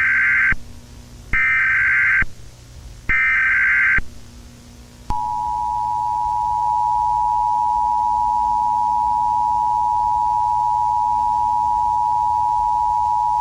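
Emergency Alert System tones announcing an emergency broadcast: three short bursts of SAME header data, each just under a second long, then after a short pause the steady two-tone attention signal.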